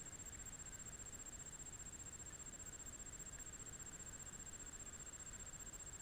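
Faint steady background hiss with a thin, steady high-pitched whine throughout, and nothing distinct happening.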